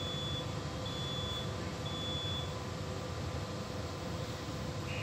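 Three short, high electronic beeps about a second apart in the first couple of seconds, over a steady machinery hum.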